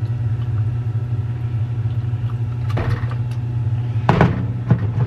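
A steady low hum runs throughout, with a few short knocks and rustles in the second half, the louder ones about four seconds in.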